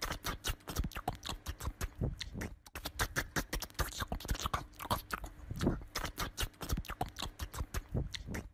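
Small dog's claws and paws tapping and scrabbling on a wooden door and floor as it hops on its hind legs: a quick, irregular run of clicks and scrapes, several a second.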